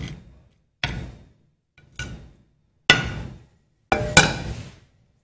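Five sharp knocks of a utensil against a plate, each ringing briefly and fading, about one a second with the last two close together.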